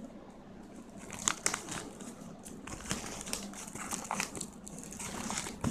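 White plastic courier wrapping around a cardboard parcel crinkling and rustling as it is handled and pulled open, with scattered sharp crackles.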